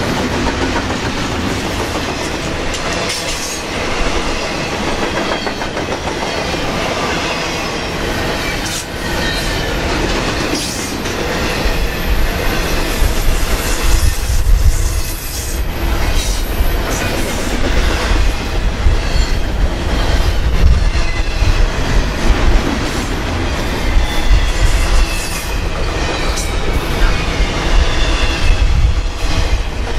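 Double-stack intermodal freight train's loaded container cars rolling past close by, steel wheels clattering over the rail joints under a steady heavy rumble. It gets louder and deeper from about twelve seconds in.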